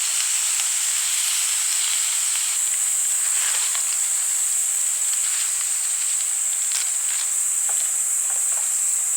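Steady high-pitched insect chorus, a continuous shrill drone with a few faint short chirps in it.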